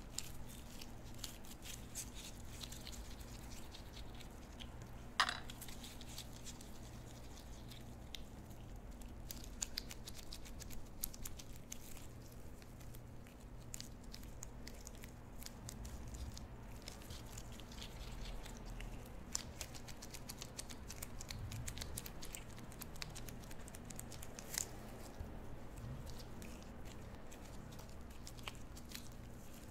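Gloved fingers kneading and wrapping soft wagashi dough around a filling: faint sticky squishes and small clicks of rubber gloves on the paste, with one sharper click about five seconds in. A steady low hum runs underneath.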